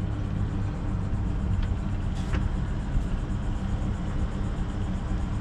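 Boat engine idling steadily at the dock, a low even hum. One short hiss-like clatter about two seconds in.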